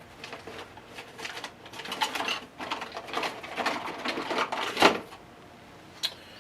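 Laptop plastic parts being handled: a run of quick clicks and rattles, ending in a loud click about five seconds in, then one more sharp click shortly after.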